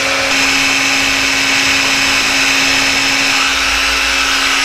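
Electric mini food chopper running steadily at one constant pitch, grinding dry rolled oats and cinnamon into a coarse flour.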